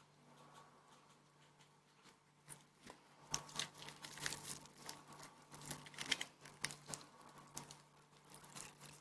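Crisp batter crust of buttermilk fried chicken crackling and crunching as a piece is torn apart by hand: a faint run of small crackles from about two and a half seconds in until near the end, over a steady low hum.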